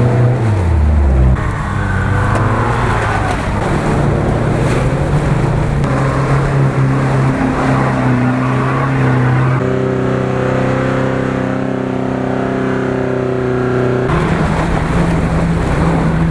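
Off-road SUV engines held at high revs as the tyres spin in deep mud: a Toyota 4Runner first, then near the end a Jeep Grand Cherokee. The engine note stays steady for stretches and jumps to a new pitch several times.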